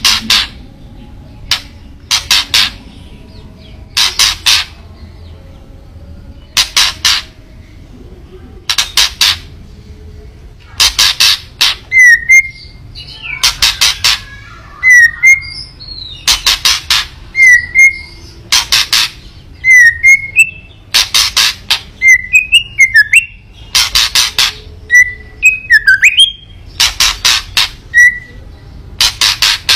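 White-rumped shama giving harsh, rattling kretekan calls in short loud bursts every one to two seconds, the agitated call used to provoke other shamas. From about the middle on, short whistled notes come between the bursts.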